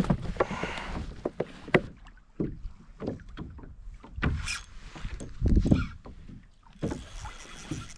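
Irregular knocks and bumps on a fishing kayak as a landed fish and gear are handled aboard, with a short rattle about halfway and a brief burst of noise near the end.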